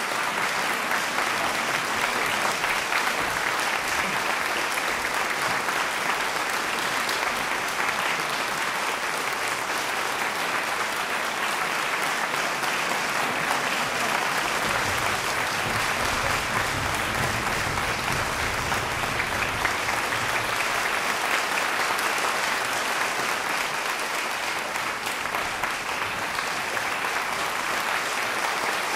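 Large audience applauding steadily and at length.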